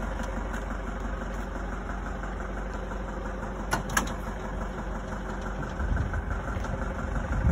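A motor running steadily, with two sharp clicks a little under four seconds in and some low thumps near the end.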